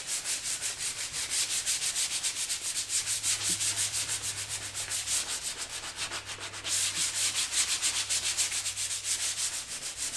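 Sandpaper rubbed by hand over a kayak's plastic hull in quick back-and-forth strokes, several a second, a gritty hiss that gets louder about two-thirds of the way through. The worn keel is being scuffed rough, its gloss taken off, to prepare it for a patch.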